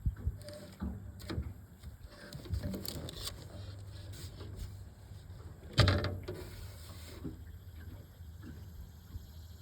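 Scattered small clicks and knocks over a low steady hum, with one sharp, loud knock about six seconds in.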